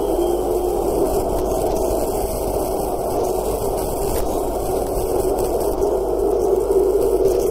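Steady, dense roar of a football stadium crowd, heavily distorted and hissy.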